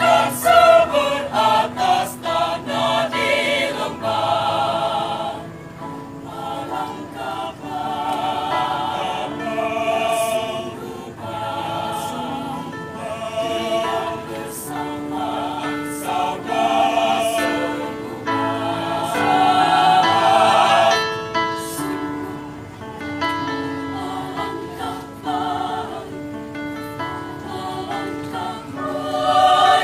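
Mixed choir of women's and men's voices singing in parts, holding chords in phrases that swell and fade, swelling loudest about two-thirds of the way through.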